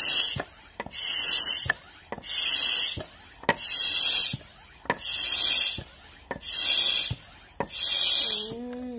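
Floor-standing hand pump being worked steadily to inflate a balloon: a hiss of air on each push stroke, about seven strokes at a bit more than a second apart, with a knock as the handle turns at each end of the stroke.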